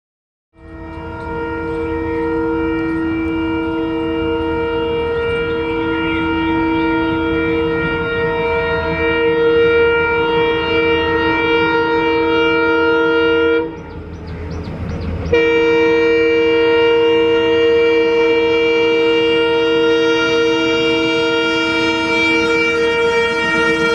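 Diesel locomotive's horn sounding one long steady blast as the train approaches, over the rumble of the train. About 14 seconds in the horn breaks off for a second and a half, leaving only the train's rumble, then sounds again.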